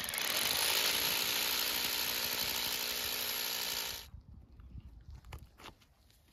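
Power drill running steadily for about four seconds and then stopping, used to screw plastic weather strips onto the wall. A few light clicks and taps follow.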